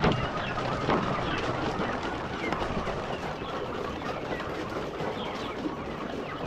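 A flock of chickens pecking feed, a dense, rapid clatter of beaks striking the feed and feeder, with short high cheeps mixed in.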